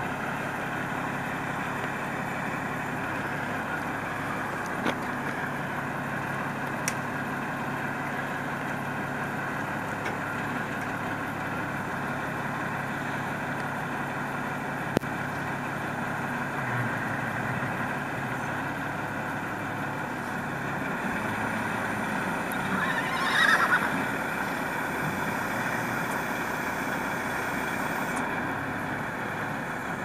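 Crane truck's engine running steadily, with a brief wavering squeal about three-quarters of the way through.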